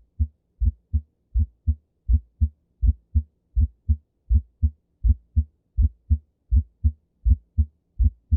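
Recorded heartbeat: a steady run of paired low thuds, the first and second heart sounds (lub-dub), about 80 beats a minute.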